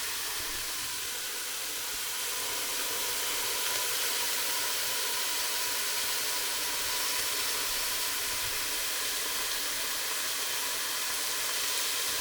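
Chicken pieces sizzling steadily in hot olive oil in a frying pan as they brown.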